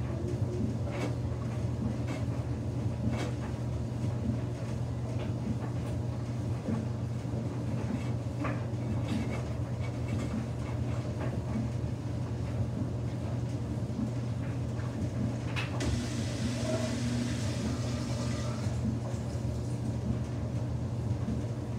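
Samsung front-load washing machine running with a single wet towel in the drum: a steady motor hum as the drum turns, with scattered soft knocks as the towel tumbles. About sixteen seconds in, a hissing rush joins for about three seconds.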